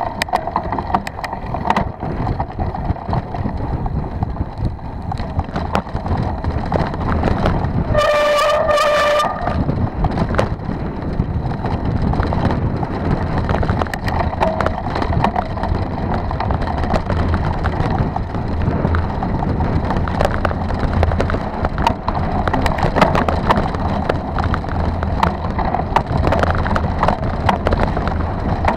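Mountain bike riding over a bumpy grass-and-dirt track, picked up by a camera mounted on the bike: steady tyre rumble and constant rattling. About eight seconds in, a steady high tone sounds for about a second.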